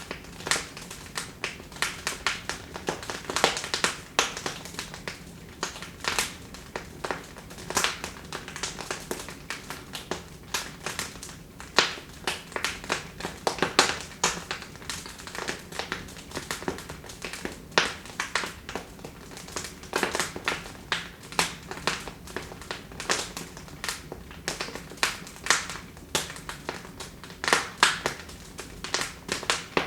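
Wood fire in a fireplace crackling: irregular sharp pops and snaps, several a second, over a soft hiss of burning.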